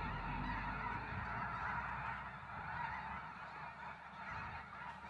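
A huge flock of snow geese calling all at once: a dense, unbroken din of many overlapping honks, easing a little near the end.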